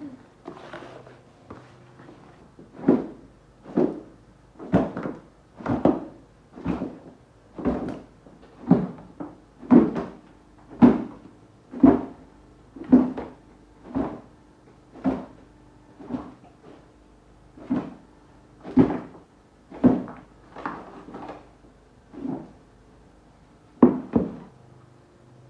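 Dull thumps repeating about once a second, some twenty in all, from a turkey marinade of spices and stock cube being mixed by hand.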